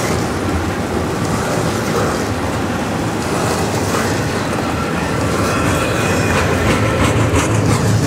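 Double-stack intermodal well cars loaded with shipping containers rolling past, steel wheels rumbling and clattering on the rails, a little louder near the end.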